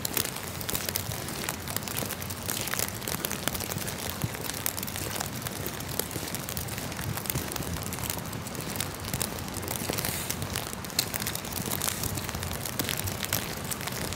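Steady rain falling, with many sharp ticks of drops striking close by.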